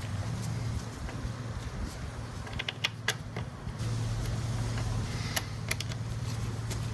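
A few sharp clicks and taps from parts and tools handled while bolting a motorcycle's plastic fairing panel in place, in two short clusters about three seconds in and again near the end, over a steady low hum.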